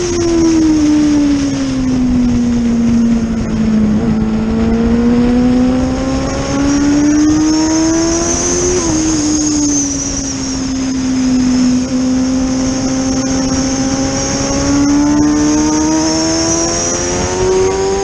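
Onboard sound of a racing engine at speed on a circuit. The engine note falls over the first few seconds as the vehicle slows, then climbs steadily. It drops sharply with a gear change about nine seconds in, holds, and climbs again near the end.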